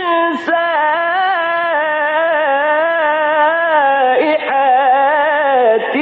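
A man's voice reciting the Quran in melodic mujawwad style, drawing out long ornamented notes with wavering pitch and short glides, with no added echo effect.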